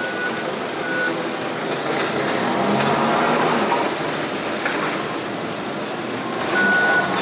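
Toyota forklift engine running as it drives off with a load, its backup alarm giving short steady beeps at the start and about a second in, and one longer beep near the end.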